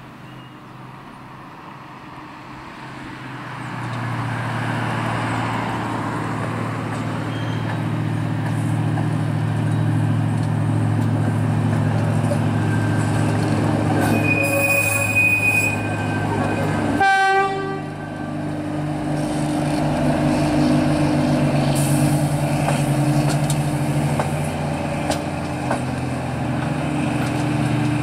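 Diesel engine of KiwiRail's EM80 track evaluation railcar running as the car approaches and passes, growing louder a few seconds in. A short horn blast sounds about halfway through.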